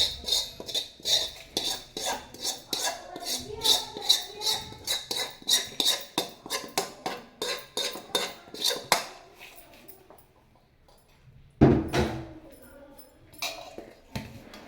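A spoon scraping and clinking against a metal kadhai in quick strokes, about three or four a second, as roasted coriander-seed mixture is scraped out into a basin. The strokes stop about nine seconds in; after a short lull there is one loud clunk of metal cookware.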